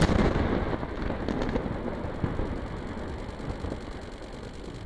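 Rumble of a demolition explosion at the base of a high-rise office building, dying away slowly over several seconds as the smoke spreads.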